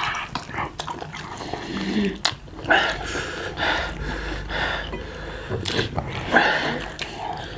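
People huffing and gasping in a run of breathy vocal sounds as their mouths burn from eating hot green chillies, with a few sharp clicks among them.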